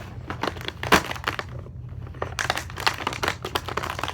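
Toy packaging being handled: plastic and paper crinkling with irregular clicks and knocks, one louder crack about a second in and a short lull near the middle.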